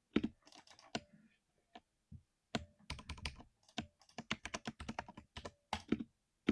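Ducky One 3 Mini mechanical keyboard with silver smooth speed linear switches being typed on: scattered keystrokes, a brief pause about two seconds in, then a fast run of keystrokes.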